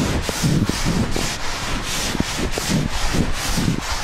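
Board duster rubbed briskly back and forth across a chalk blackboard, wiping chalk writing off in quick strokes, about four a second.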